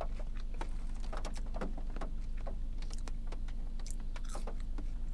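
French fries being eaten: scattered small crunches and clicks of chewing and of handling the sauce cup, over a steady low hum inside the car.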